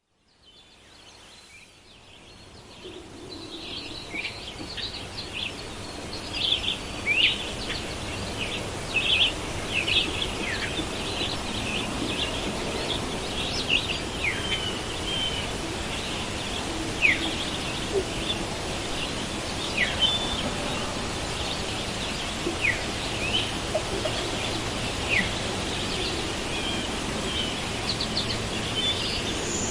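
Forest ambience: many birds chirping and giving short downward-sliding whistled calls over a steady background hiss, fading in over the first few seconds.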